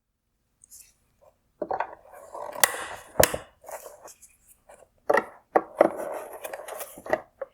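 Plastic parts of a C8 Corvette LED headlight being worked apart by hand: irregular scraping and rubbing with several sharp clicks and knocks, as the projector's mounting clips are pried at.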